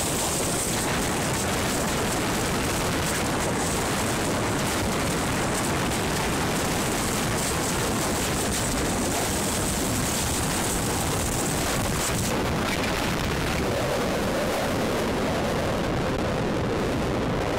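Tornado wind and rain rushing loudly and steadily, with many small knocks and clatters of debris through it.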